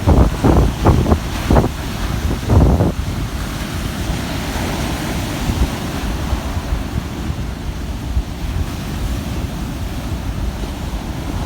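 Ocean surf washing in a steady rush, with wind buffeting the microphone in gusts for the first three seconds or so.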